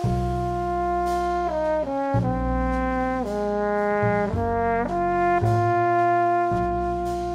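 French horn playing a melody of held notes, entering at the start and moving through a series of pitch changes, over sustained low bass notes. The last note is held for about two seconds and fades near the end.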